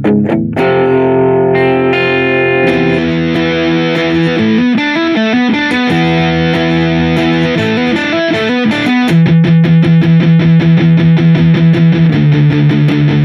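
Smiger LG2 H electric guitar played through effects with some distortion: ringing held chords, then quicker picked runs, then a steady chugging figure of about four notes a second from about two-thirds of the way in.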